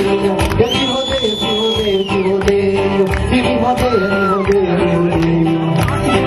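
Festive music with a singing voice, plucked strings and percussion, played steadily throughout.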